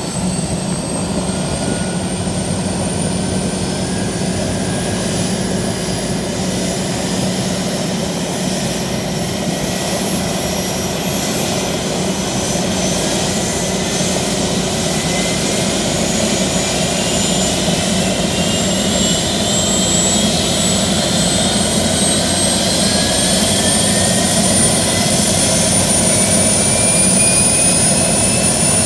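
Single-engine turbine helicopter running up on the pad: a steady low drone under a high turbine whine that climbs slowly in pitch as the engine spools up, growing a little louder toward the end.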